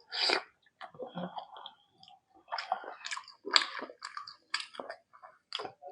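A person chewing a mouthful of rice with mutton curry close to the microphone: irregular wet mouth smacks and clicks, a few a second, with short pauses between them.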